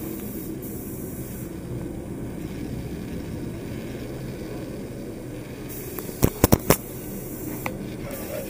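Handheld camera handling noise: a steady low rumble, with four quick sharp knocks about six seconds in as the camera is bumped and tipped over, then a fainter click.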